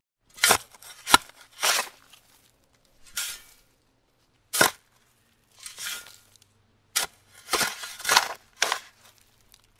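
A shovel digging into a pile of sand to fill sandbags: about ten short, gritty scrapes and crunches, a few with a sharp click as the blade strikes, separated by brief pauses.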